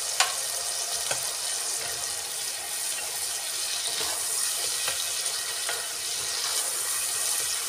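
Tomato and spice masala sizzling as it fries in oil in a kadai, stirred with a spatula, with a few light clicks of the spatula against the pan.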